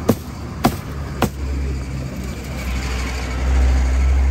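A meat cleaver chopping tandoori chicken on a cutting board: three sharp chops about every 0.6 s in the first second and a half. After them a steady low engine rumble fills in and grows louder near the end.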